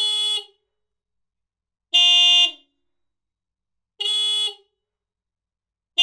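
Two Hella 12-volt disc car horns sounded one at a time: short steady blasts of about half a second every two seconds, alternating between a higher and a lower tone a minor third apart. The lower-tone blasts are the louder.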